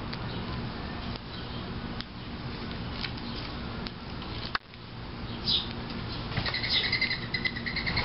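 Small birds feeding at a seed plate: a few faint clicks, then, from a little past halfway, quick repeated chirps and a flutter of wings as the birds move about, over a steady low hum.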